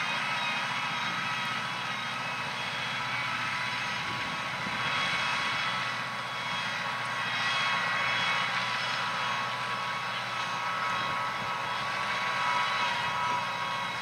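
Case IH Maxxum 120 tractor engine running steadily under load while it pulls a five-furrow plough, with a constant hum and a few steady whining tones over it.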